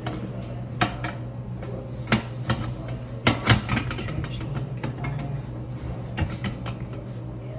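Irregular clicks and knocks of objects being handled and set down, a few sharper raps among them, over a steady low hum.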